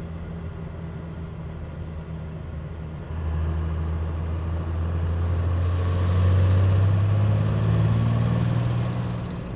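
A 1995 Dodge Ram's 12-valve Cummins inline-six diesel pulls through an acceleration run under load. The steady drone grows louder about three seconds in, is loudest a few seconds later, and eases off near the end. It is heard from beside the exhaust tip.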